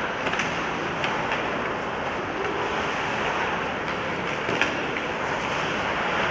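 Ice hockey in play: a steady scraping hiss of skates on the ice and rink noise, with a few sharp clacks of sticks on the puck, the loudest a little after halfway.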